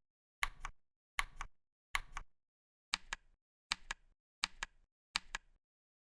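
ROG NX mechanical keyboard switch pressed repeatedly, about seven keystrokes a little under a second apart, each a quick double click.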